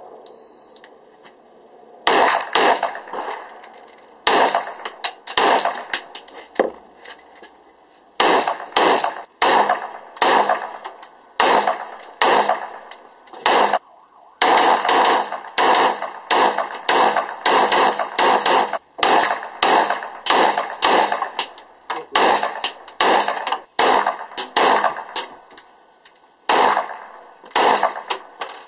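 AR-15 rifle (JP Gladiator) fired semi-automatically in quick strings of shots, dozens in all, with short pauses between strings; each shot echoes under the roofed firing line. A short high beep sounds about half a second in, before the first shot.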